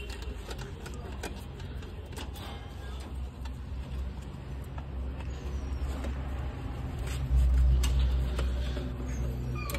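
New Holland TX Plus tractor's diesel engine running steadily, a low hum that grows louder about seven seconds in, with scattered light clicks of hand work on the engine.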